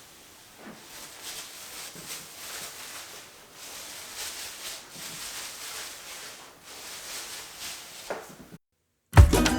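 Faint room noise with a few soft knocks and rustles. Near the end the sound cuts to a moment of dead silence, then loud music with plucked guitar begins.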